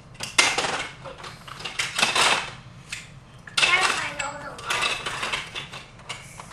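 Hard plastic toys clattering and rattling as a child rummages through them by hand, in several uneven bursts.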